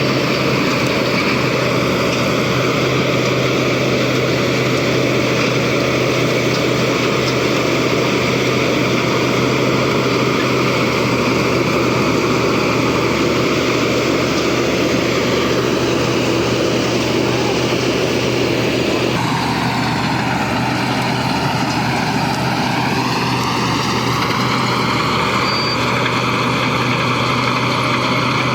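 Heavy engine of a large machine running steadily. The sound changes abruptly about two-thirds of the way through, then its pitch dips briefly and comes back up.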